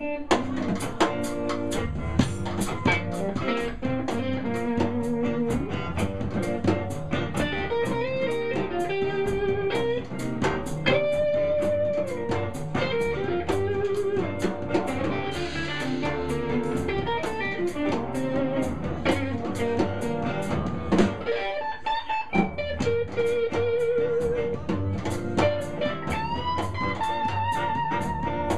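Live blues band playing an instrumental passage: an electric guitar takes the lead with held, bent notes and vibrato over bass and a steady drum-kit beat.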